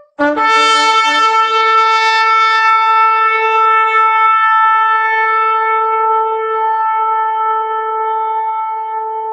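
A shofar blown in one long blast: it opens on a brief lower note that breaks up into a higher tone, which is held steady and slowly fades.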